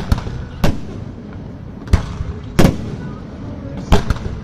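Fireworks display: aerial shells bursting in about six loud bangs at uneven intervals, some in quick pairs, over a continuous low rumble.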